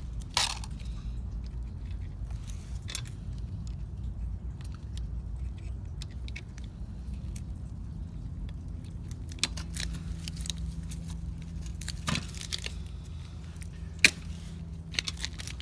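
Scattered metallic clicks and clinks as a pit bike's roller chain and master link are handled, over a steady low hum. A sharp click comes just after the start and another, the loudest, near the end.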